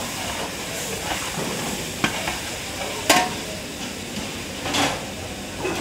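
Commercial kitchen background: a steady sizzling hiss, with a few sharp knocks and clinks, the strongest about three seconds in.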